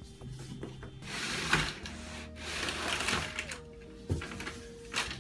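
Foam packing blocks and cardboard scraping and rubbing as a 3D printer is slid out of its box, in two rough stretches, with a single knock about four seconds in.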